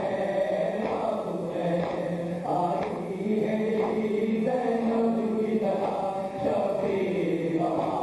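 Men's voices chanting a noha, a Shia mourning lament, in a steady melodic chant, with mourners slapping their chests in matam.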